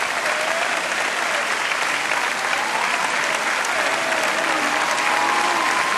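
Audience applauding steadily, with a few voices calling out in the crowd.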